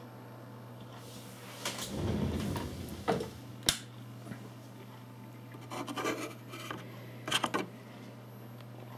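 Handling noise as a small circuit board is picked up and moved about by hand: rubbing and scraping with a few sharp clicks, over a steady low hum.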